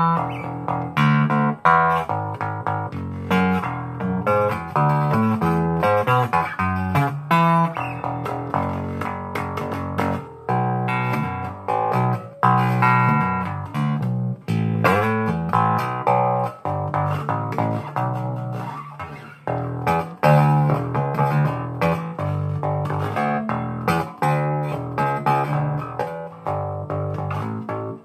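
Chinese replica of a Rickenbacker bass guitar played solo through its bridge pickup: a busy, unbroken run of plucked bass notes and double-stops, bright and powerful.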